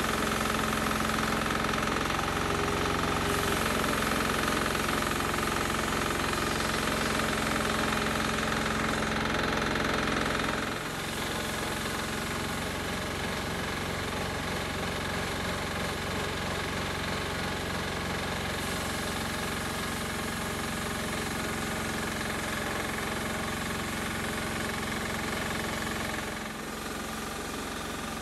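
A homemade bandsaw mill's 10 hp diesel engine running steadily at no more than half throttle, kept easy while the brand-new engine is run in, as it drives the band blade along a log. The sound changes abruptly and drops slightly about eleven seconds in and again near the end.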